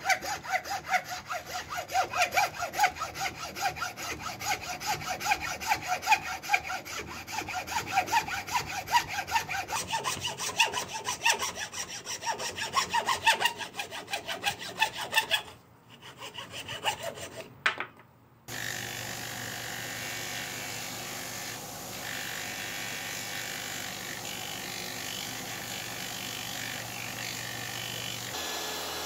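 Hand hacksaw cutting across a wooden tool handle clamped in a vise, in quick, even strokes for about fifteen seconds. After a short quiet gap, an electric disc sander starts up and runs steadily.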